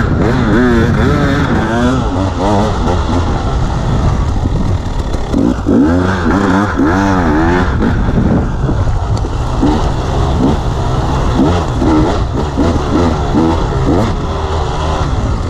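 Dirt bike engine revving on and off as the rider works the throttle along a trail, its pitch rising and falling in repeated quick surges.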